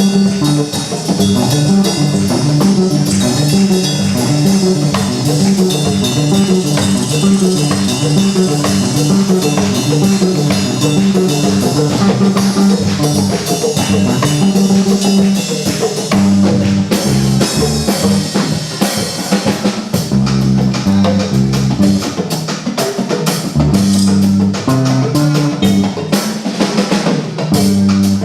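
Instrumental music with drum kit and guitar over a repeating bass line. The beat keeps going throughout, and the bass shifts to lower notes for a few seconds past the middle.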